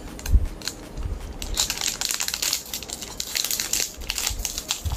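Foil Pokémon booster pack wrappers crinkling and crackling as hands grip and work a pack open, with a dull bump just after the start.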